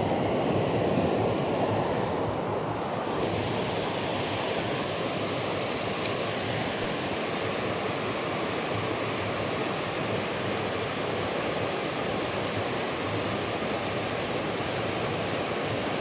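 Steady rush of water pouring over a low creek waterfall, a little louder in the first few seconds.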